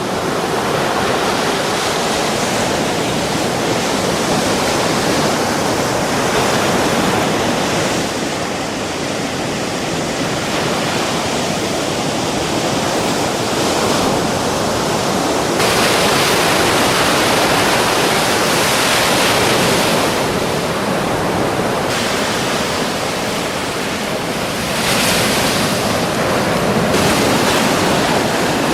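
Ocean surf: waves breaking and washing in a continuous rush that swells and ebbs, its character shifting abruptly a few times.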